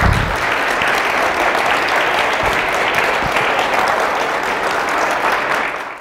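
Audience applauding steadily, cutting off suddenly at the very end.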